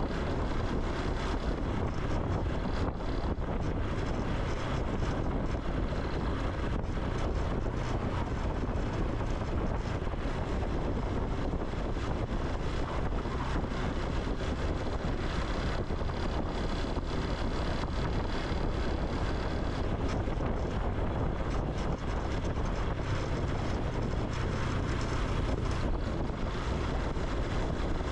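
Honda Super Cub C125's single-cylinder four-stroke engine and exhaust running on the move, with steady wind noise on the microphone.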